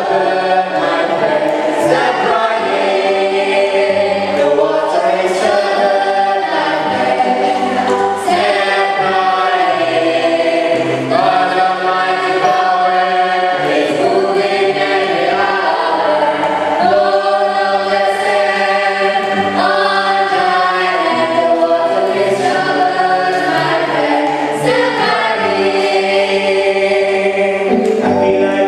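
Choir singing a gospel hymn together, with long held notes.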